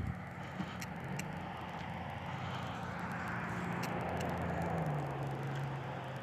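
A passing vehicle's engine: a steady hum that grows louder and drops in pitch about five seconds in as it goes by, with a few small clicks.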